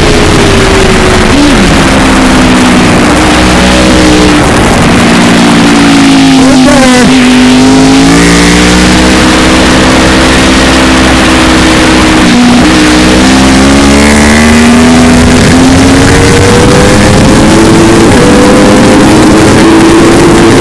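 Racing vehicle engine at speed, its note sinking and climbing as it slows and speeds up, lowest about a third of the way in and again just past halfway, then rising toward the end. The sound is heavily distorted and buried in wind rush.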